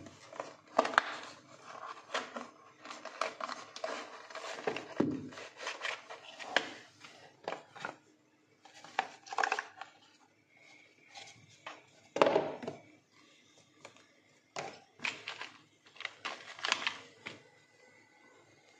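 Cardboard and paper packaging being handled: a product box slid out of its outer packaging and opened, with irregular scraping, rustling and light taps of card and paper, loudest about a second in and again near the middle.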